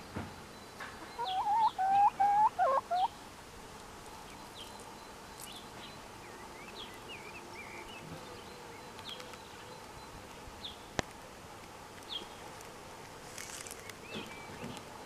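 Silkie chicken giving a quick run of about six short, loud calls between one and three seconds in. Faint high chirps follow, with a single sharp click about eleven seconds in.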